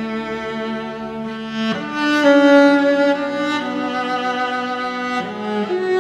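Background music of bowed strings playing slow, held notes that change pitch every second or two, swelling louder about two seconds in.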